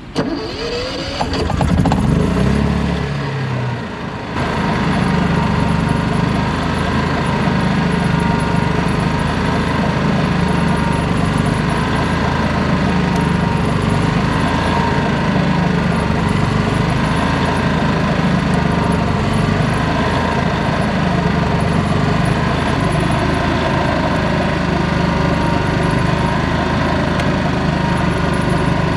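Pramac P7500i inverter generator's engine rising in pitch over the first second or two, then, about four seconds in, settling into steady running.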